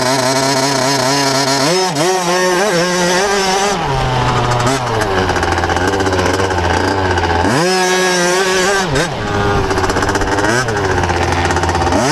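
Motocross bike engine heard from on board, running hard on the track: its pitch climbs and falls several times as the throttle is opened and closed.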